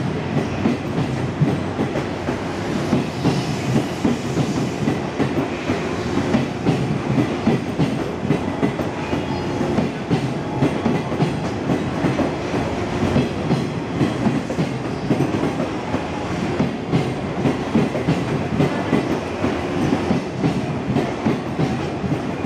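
Blue sleeper coaches of the Hokutosei overnight limited express rolling past along a station platform, their wheels clacking over rail joints in a steady, repeating rhythm.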